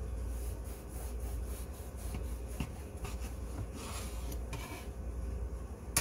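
Knife sawing back and forth through a crusty sourdough loaf on a wooden cutting board, in repeated rasping strokes, with a sharp tap at the very end.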